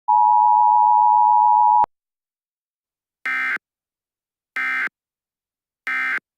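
Emergency Alert System two-tone attention signal (853 and 960 Hz) sounding steadily for under two seconds and cut off with a click, then three short bursts of EAS end-of-message data tones, each a brief buzzing screech, signalling that the alert is over.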